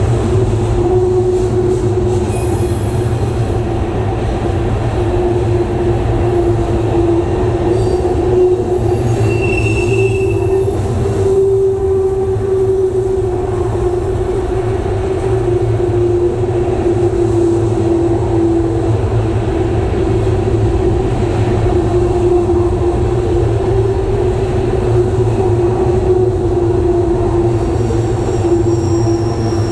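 BNSF covered hopper grain cars rolling past on steel rails, a loud, steady rumble. From about two seconds in, a thin, very high wheel squeal rides on top, with a short higher squeal near the ten-second mark.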